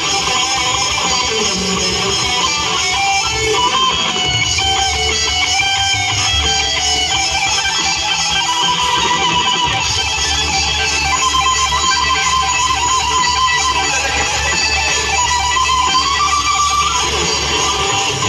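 Band music without vocals: an instrumental passage led by electric guitar, with a melodic line wandering over a steady accompaniment.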